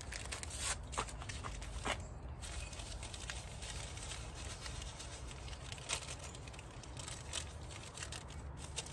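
Paper packets of instant grits being torn open and emptied, with scattered rustles and light clicks of handling.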